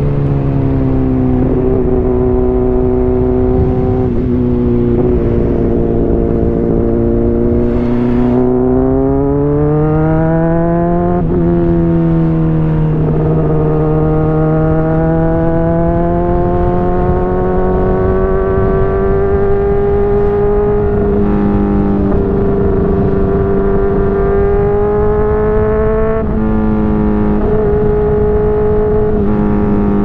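Honda CBR600RR inline-four with a slip-on exhaust under way, its pitch rising and falling gently with the throttle and breaking off and stepping several times as it changes gear. Wind rush sits under the engine throughout.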